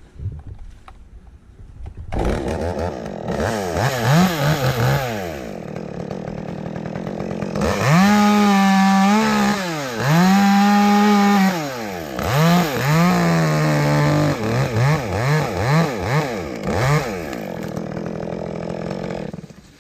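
Chainsaw starting about two seconds in and revved up and down in bursts, then held at full throttle twice for a second or two each, as in cutting through a maple limb. It then blips the throttle several times, runs lower, and cuts off near the end.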